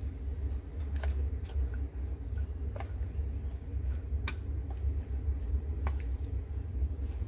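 Chopsticks tossing wet squid, soaked vermicelli and black fungus in a stainless steel bowl: soft squishing with a few sharp clicks of the chopsticks against the metal, over a steady low hum.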